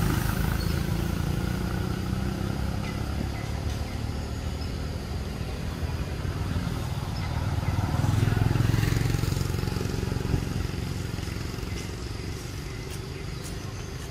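Low engine rumble of a passing motor vehicle. It grows louder about eight seconds in and eases off near the end.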